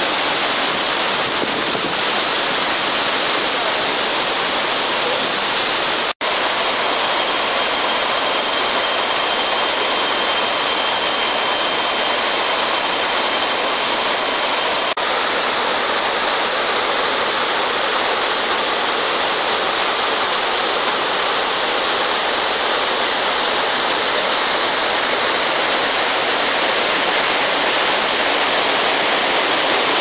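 Steady, loud rush of a tall waterfall and its rocky cascades pouring onto rocks. The sound cuts out for an instant about six seconds in.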